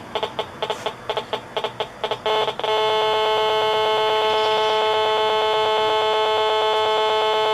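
RF meter's audio feedback rendering a GSM mobile phone transmission as a buzz: it stutters in quick, irregular pulses for about two and a half seconds, then settles into one steady, loud buzz. The buzz is the on-off pulsing of the GSM signal, some 200 times a second, made audible.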